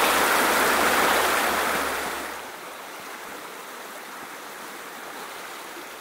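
Rushing water of a rocky trout stream, a steady rush of noise that drops to a softer, quieter rush about two and a half seconds in.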